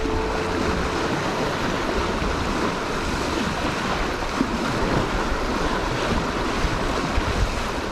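Sailing yacht moving fast under sail: water rushing and splashing along the hull and bow, mixed with wind on the microphone, in a steady wash of noise.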